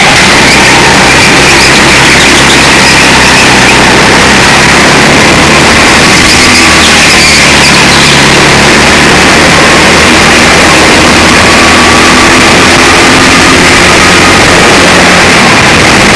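Go-kart engine running hard at racing speed, heard from on board the kart over a steady wash of wind and track noise. The sound is loud and unvarying in level, and the engine note shifts a little in pitch as the kart works through the corners and straights.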